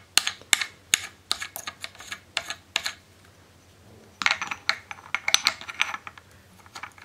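Hard clicks and clatter of a green adapter plate being seated and clamped onto a SkyWatcher Star Adventurer tracking mount. There are separate clicks every half second or so at first, then a quick dense run of clicking about four seconds in.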